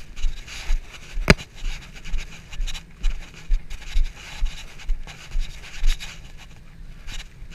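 Clothing rubbing and scraping against a body-worn camera's microphone as the wearer walks, with dull thumps about twice a second in step with the footsteps. There is one sharp click about a second in.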